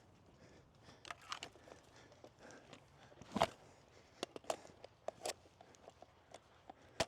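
Footsteps through brush and undergrowth, with irregular sharp snaps and clicks; the loudest come about three and a half seconds in and just before the end.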